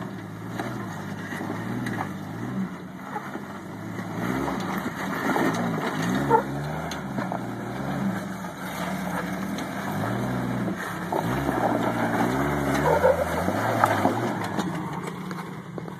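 Lifted Jeep Wrangler YJ's engine revving up and falling back again and again as it crawls up a steep rock ledge, with a few sharp knocks along the way.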